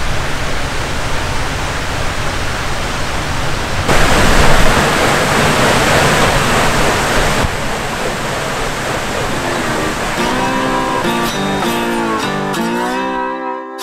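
A steady rushing noise, louder between about four and seven and a half seconds in. Guitar music fades in from about ten seconds in and takes over near the end.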